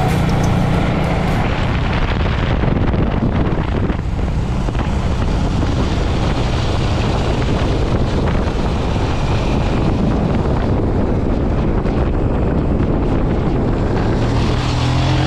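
Motorcycle engine running while riding, with heavy wind noise on the microphone.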